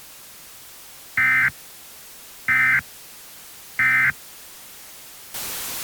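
Three short, identical bursts of Emergency Alert System end-of-message data tones, about 1.3 s apart, closing the broadcast alert. Near the end comes about a second of loud static hiss.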